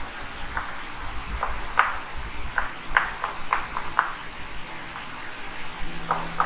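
Chalk writing on a blackboard: an irregular run of short taps and scrapes as letters are written. There is a pause of about a second and a half before it starts again near the end.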